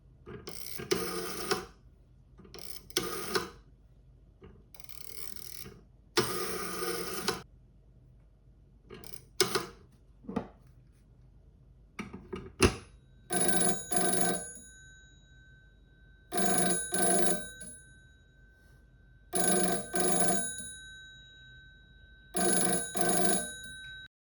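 Rotary dial of a 1928 CB27 telephone, an L.M. Ericsson dial, pulled round and running back several times. It is followed by the telephone's bell ringer, with its 500-ohm coils, ringing in four bursts about three seconds apart.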